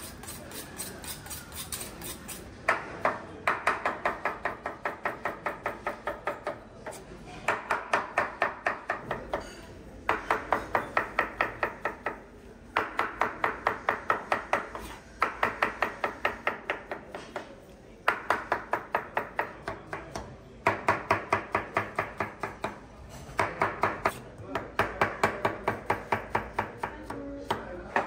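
Chef's knife rapidly chopping fresh tomatoes on a white plastic cutting board, about five strokes a second, in runs of two to three seconds with short pauses between. The chopping starts about three seconds in, after a few faint light ticks.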